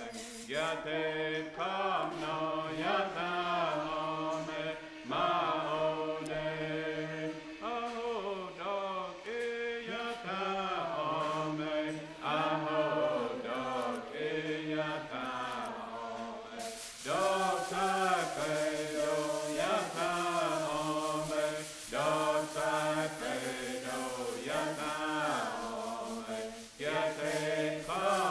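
Background music: a chanted song, voices singing long held notes in repeated phrases.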